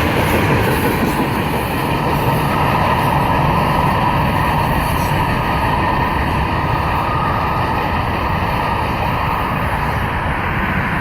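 Freight train rolling past, a steady noise of wheels on the rails that eases off slightly near the end.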